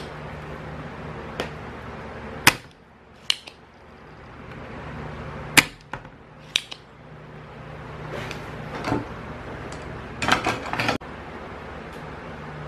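Sharp single clicks and taps of tools and a circuit board being handled on a workbench as a small variable resistor is desoldered, spaced a second or more apart. A quick cluster of rattling taps comes near the end, over a low steady hum.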